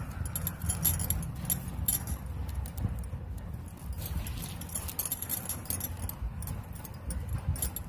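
Plastic basket-weaving wire being pulled and knotted by hand: the strands rub and click against each other in many small, irregular ticks, over a low rumble.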